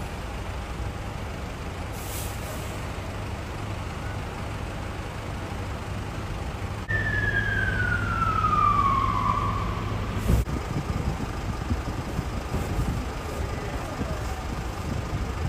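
Emergency vehicles idling with a steady low engine hum under street noise. About seven seconds in, a siren slides down in pitch for a couple of seconds, and a short thump follows about three seconds after.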